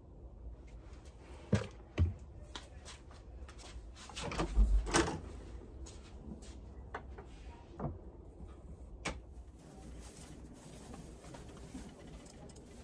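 Metal lockers being handled: scattered clicks and knocks of latches and doors, with a louder cluster of clunks about four to five seconds in.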